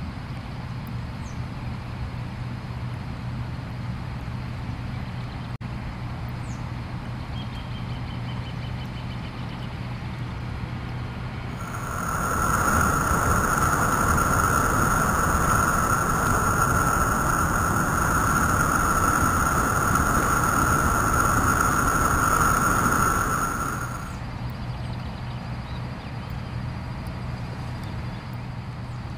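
Steady rush of a waterfall pouring into the stream. About twelve seconds in, a louder steady whistling whine fades in over the rush, holds for about twelve seconds and fades out again.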